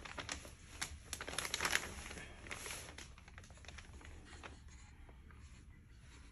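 Close rustling and crinkling of fabric as a sleeping baby is shifted in a padded lounger, with many small clicks in the first three seconds, then fading to a faint hiss.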